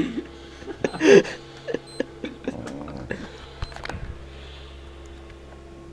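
Dog scuffling and snapping at a wristwatch on a bed: rustling and sharp handling clicks. A brief vocal sound about a second in, and the watch gives a couple of faint short beeps.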